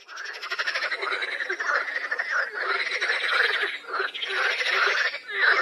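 A dense chorus of many frogs croaking together, steady and overlapping.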